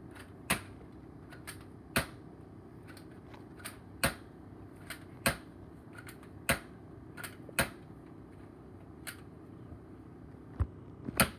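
Sharp plastic clicks from a toy foam-dart blaster, repeated roughly every second or so with a quick double click near the end, over a steady low hum.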